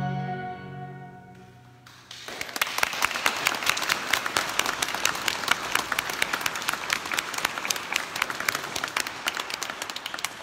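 A held musical chord fades out over the first two seconds, then the congregation breaks into applause, a dense steady clapping that runs on to the end.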